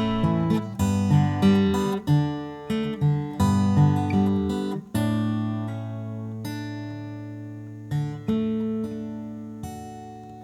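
Acoustic guitar strumming the closing chords of a song, then letting a chord ring and slowly die away, with one more strum about two-thirds of the way through.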